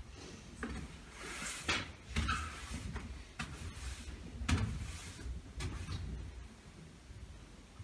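A broom sweeping a floor in irregular strokes, each a short swish, some with a dull low knock.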